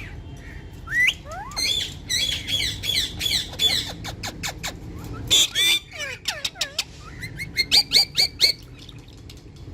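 Ringneck parrots squawking and chattering, in several bursts of shrill, rapidly repeated calls with quick up-and-down pitch slides.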